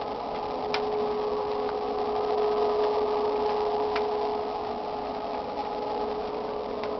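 A steady droning hum holding one constant pitch, with three faint clicks, which the uploader takes for a strange sound from the sky.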